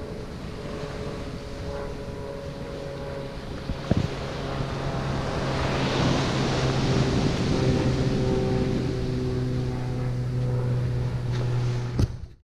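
Steady low engine drone, deepening about three seconds in, over a rushing noise of wind and surf that swells in the middle. A single knock about four seconds in, and the sound cuts off just before the end.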